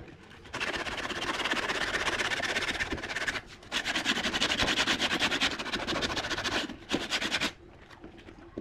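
Sandpaper rubbed by hand along a curved laminated wood strip in quick back-and-forth strokes, smoothing a glued seam. It runs in two long spells with a short pause near the middle and stops about a second before the end.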